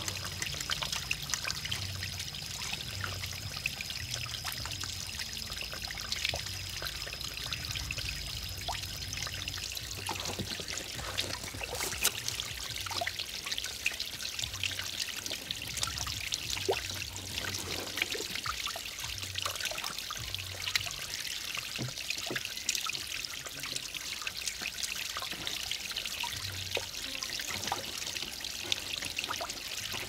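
Small rock waterfall trickling and splashing steadily into a shallow pond. A thin, steady high tone runs alongside for about the first ten seconds.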